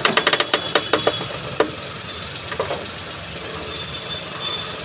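Maruti Suzuki Alto's front strut top mount creaking as the steering is turned with the engine idling: a fast run of sharp clicks at the start, then a few single cracks. The rubber strut mount has broken, letting the strut ride up so that metal rubs on metal.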